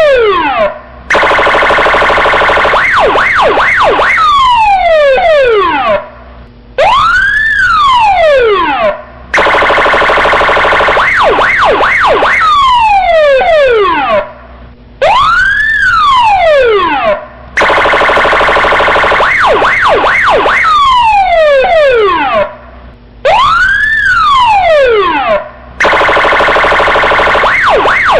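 Police siren cycling through its tones: a long wail that rises and falls, a fast warbling yelp, and a harsh buzzing horn tone. Short breaks separate the tones, and the cycle repeats about every eight seconds.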